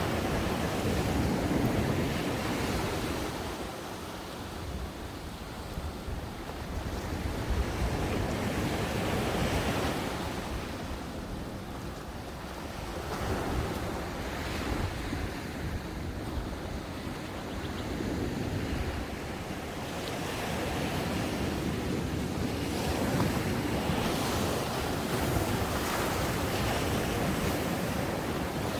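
Ocean waves breaking on a sandy beach and washing up the shore, the surf swelling and easing every few seconds. Wind buffets the microphone at times.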